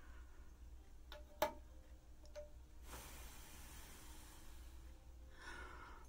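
Quiet room with a few light clicks, the sharpest about a second and a half in, each with a short ring, as the metal batik tool and wax pot are handled. A soft hiss follows, then breath sounds near the end.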